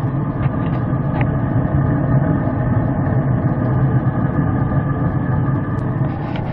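Traeger pellet grill's fan running: a steady mechanical hum.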